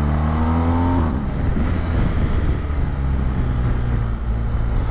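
A BMW adventure motorcycle's engine heard from the rider's seat, with wind rushing over the microphone. The engine note rises for about a second, then drops away as the throttle is closed and the bike slows. A steady engine note picks up again near the end.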